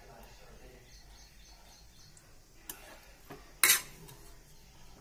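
A cooking utensil scraping and scooping through shredded chicken and vegetables in a pan, with a couple of light taps and one loud clack against the pan about three and a half seconds in.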